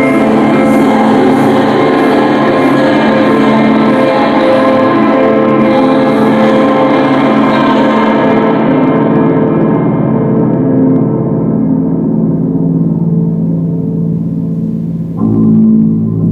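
Live experimental music: a dense, gong-like drone of many ringing tones held together, its high overtones fading away over about ten seconds while the lower tones sustain. A new, lower chord comes in sharply near the end.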